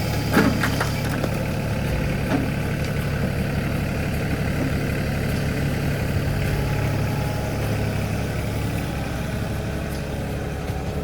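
Tractor engine running steadily at idle, with a few sharp knocks about half a second in.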